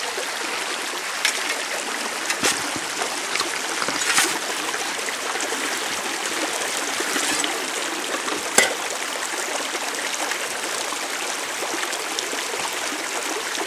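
Shallow creek water running steadily through a small Gold Saver sluice box. A few short sharp knocks stand out, the loudest a little past the middle.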